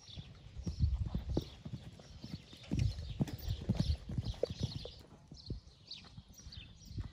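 A pony's hooves thudding on a sand arena at a canter, an uneven stream of soft beats that is loudest in the middle.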